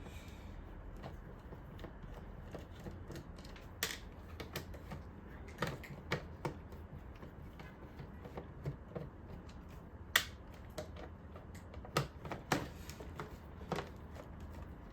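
Scattered small clicks and taps from a precision screwdriver backing Phillips-head screws out of a Roomba's plastic bumper and from the plastic parts being handled, with one sharper click about ten seconds in.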